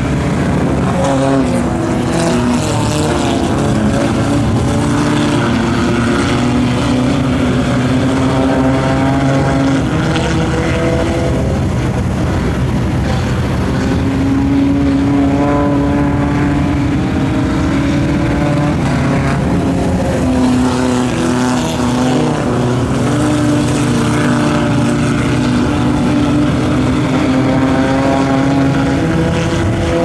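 Engines of several compact dirt-track race cars running laps, the engine note rising and falling over and over as the cars pass and power through the turns.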